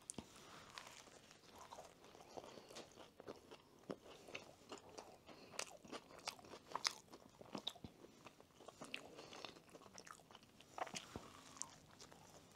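Faint close-up eating sounds: a chicken sandwich being pulled apart and bitten, with scattered crunchy crackles and chewing.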